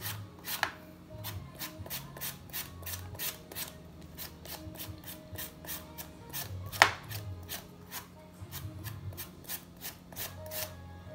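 Knife slicing banana blossom in quick, even strokes, about three or four a second, with one sharper knock a little past halfway.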